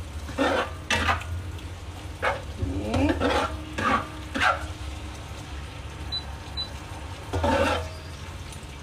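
Spatula scraping and tossing rice vermicelli around a wok while it stir-fries: a string of short, irregular scrapes, bunched about three to four and a half seconds in and again near the end, over a steady low hum.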